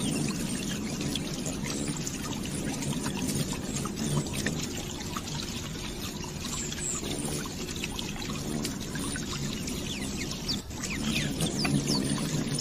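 Small water stream flowing and trickling steadily, with a few short bird chirps, more of them near the end.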